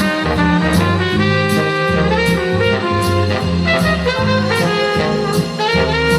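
Big-band swing music with a brass and saxophone section playing an instrumental passage over a steady beat, no singing.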